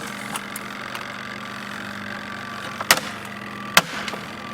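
Small RV washing machine's motor running with a steady hum, broken by three sharp cracks: one about three seconds in, another under a second later, and a third right at the end.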